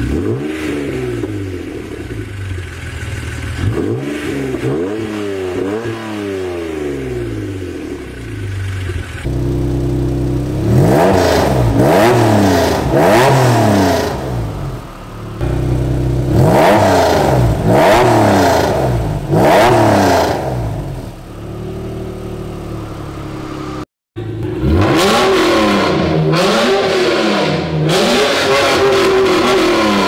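Acura NSX V6 engine revved repeatedly through different aftermarket exhausts, including an RFY V4 titanium system, a Magnaflow cat-back and a Pride V2 titanium system. Each rev makes a quick rise and fall in pitch, and there are abrupt cuts from one car's exhaust to the next.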